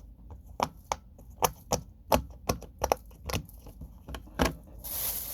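Plastic fidget toys clicking and knocking as they are handled, about a dozen sharp, irregular taps, then a rustling starts near the end.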